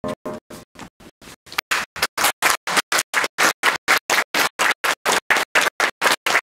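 The last notes of a grand piano fade, and about a second and a half in an audience starts applauding. The whole sound cuts in and out about five times a second.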